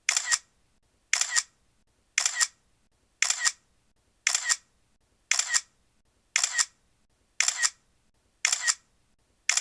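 Camera shutter firing about once a second, ten times, each shot a quick double click.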